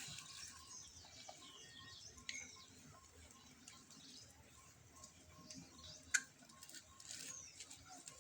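Faint, scattered bird chirps and short falling calls, with a faint tone repeating in short dashes throughout and one sharp click about six seconds in.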